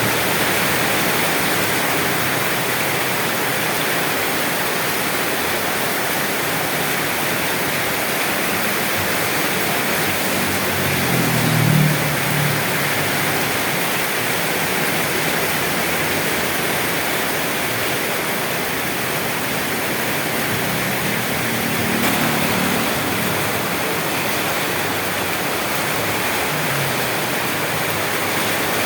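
Steady rain falling, an even continuous hiss. A low rumble swells briefly twice, about eleven and twenty-two seconds in.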